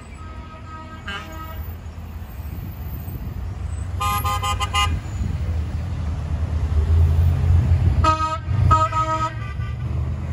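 Tow truck horns sounding as the trucks drive past: a quick series of toots about four seconds in, then two more horn blasts about eight seconds in. Under them is the low rumble of heavy truck engines, growing louder as a truck passes.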